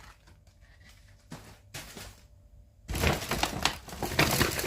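Plastic grocery packaging crinkling and rustling as it is handled, starting loud and dense about three seconds in, after a few light knocks.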